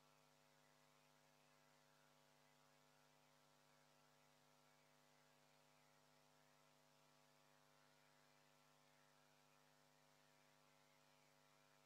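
Near silence: only a faint, steady electrical hum with its overtones.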